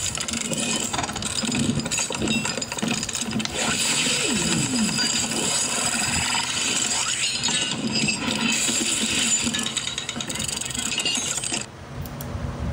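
A folded paper instruction leaflet being opened out and handled, a dense rustling and crackling of paper with many small clicks. It drops away sharply near the end.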